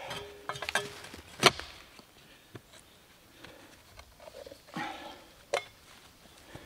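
Clamshell post hole digger driven into gravelly soil: a sharp strike of the blades about a second and a half in, the loudest sound, with smaller clicks before it, then a scraping crunch and another sharp strike near the end as the jaws are worked and a load is lifted.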